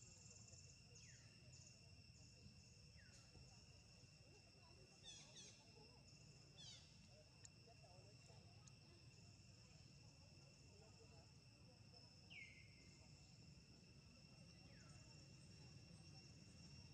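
Faint outdoor ambience: insects keep up a steady high-pitched drone, and a few short falling chirps stand out now and then over a low background rumble.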